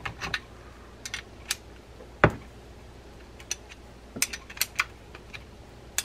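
A steel box-end wrench clicking and clinking against the handle nut and handle of a small lever drag fishing reel as the nut is tightened. There is one sharper knock about two seconds in, and a quick run of clicks near the end.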